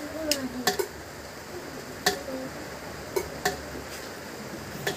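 Rainwater from a leaking roof dripping into metal pots set out to catch it: irregular sharp plinks, about seven in five seconds, each with a short ring.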